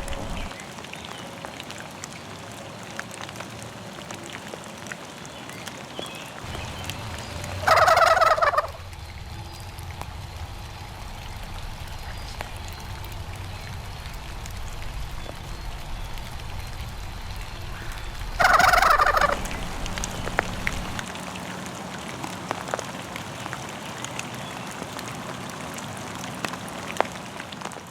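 Two loud turkey gobbles, each a rapid rattling call under a second long, about ten seconds apart.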